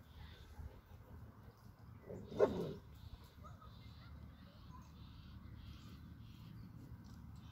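A dog barks once, about two seconds in, a single loud call that drops in pitch, over faint steady background noise.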